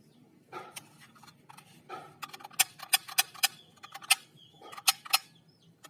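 A run of sharp, irregular clicks and taps, about a dozen, coming mostly between two and five seconds in, with a few softer scuffs before them.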